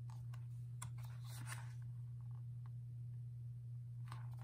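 Pages of a glossy album photobook turned by hand: a few soft paper rustles and brushes, clustered in the first second and a half and again near the end, over a steady low hum.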